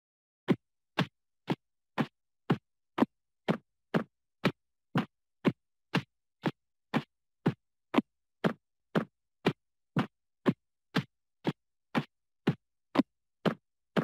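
Cartoon ticking sound effect: short knocking ticks, evenly spaced at two a second and each dipping slightly in pitch, starting about half a second in and running on steadily like a clock's tick-tock.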